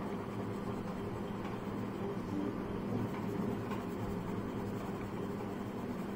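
Pencil lead scratching on paper as strokes are drawn and shaded, over a steady low background hum.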